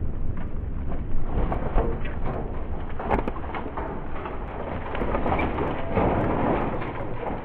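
Aftermath of a Tannerite blast: a steady low noise with scattered knocks and clatters as the blown-apart plasma TV and its debris come down and crash onto the ground, the loudest knocks a little over a second in.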